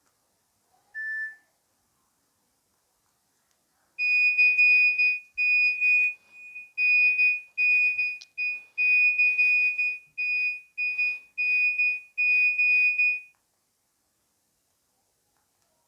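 Nokia 2600 mobile phone playing a ringtone: one high tone beeped over and over in a rhythmic on-off pattern for about nine seconds, starting about four seconds in. A single short, lower beep sounds about a second in.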